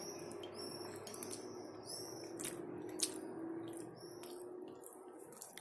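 Mouth sounds of someone eating sauce-soaked bread: scattered wet chewing clicks and smacks, the sharpest about three seconds in. Birds chirp in quick repeated calls through the first two seconds. A faint steady hum runs underneath.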